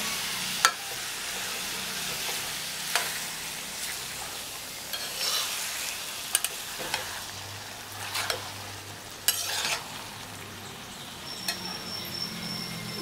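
Chopped tomatoes and onions frying with a steady sizzle in a steel pan while a steel spatula stirs them, scraping and clinking against the pan every second or two.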